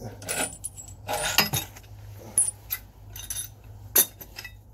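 Steel pieces of a ball-joint press tool clinking and knocking as they are taken off a rear suspension arm, several light metallic clinks, some ringing briefly, and a sharp clank about four seconds in.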